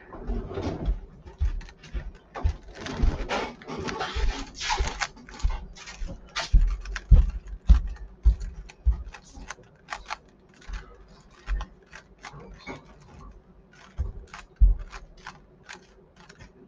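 Rubik's cube being turned by hand: an irregular run of plastic clicks and clacks, denser and hissier about three to five seconds in, with a few heavier thumps around the middle.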